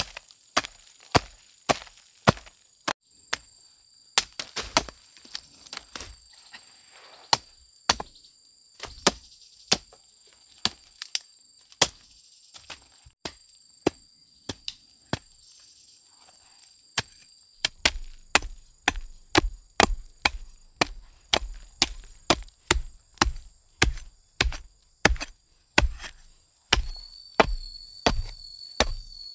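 Repeated chopping with a blade striking wood, sharp strokes about once or twice a second. About two-thirds in they quicken to two or three a second, each with a heavier thud.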